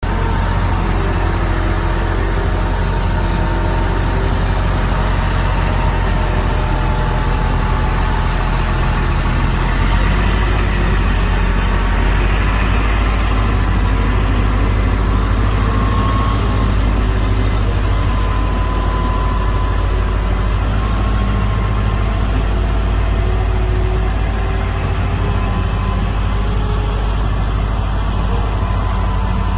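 Turbocharged Cummins QSB5.9 diesel engine of a Tadano GR300XL-1 rough-terrain crane running steadily, a deep even hum with a thin whine above it.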